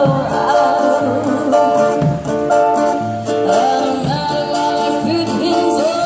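A live singer's voice with vibrato over guitar accompaniment and a steady bass pulse: a busking band playing a song.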